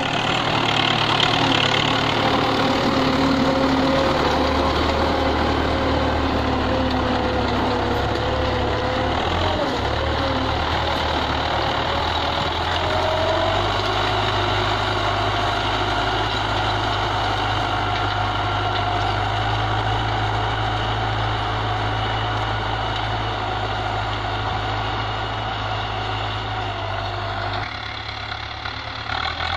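Belarus 510 tractor's diesel engine running steadily under load as it pulls a disc harrow, its pitch shifting about ten seconds in and again a few seconds later; the sound drops a little near the end as the tractor works farther away.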